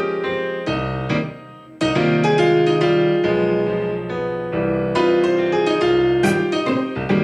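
Piano playing hymn music, chords under a melody. It dips quieter about a second and a half in, then fuller chords come in.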